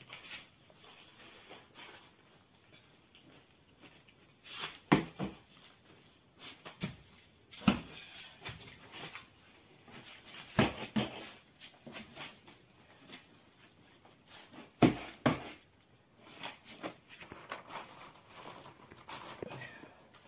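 Cloth mats and a paper sheet handled over a metal bowl of dough as it is covered: soft rustling and crinkling, broken by a few sharp knocks and thumps.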